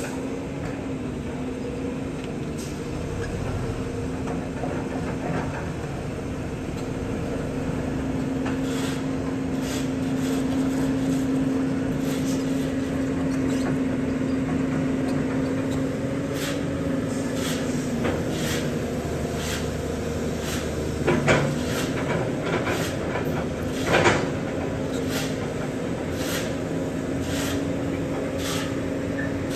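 Caterpillar tracked excavator working, its diesel engine and hydraulics running with a steady hum as the bucket digs soil. Frequent short clanks and knocks from the bucket and tracks, with two louder knocks about two-thirds of the way through.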